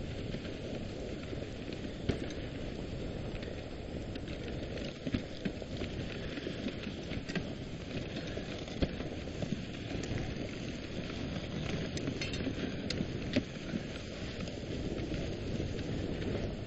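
Dog sled gliding over snow: a steady hiss from the runners, with scattered clicks and knocks from the moving sled.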